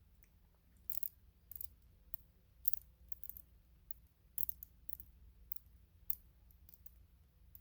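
Brinks combination padlock being handled: a dozen or so faint, irregular metallic clicks as its number dials are turned and its parts move.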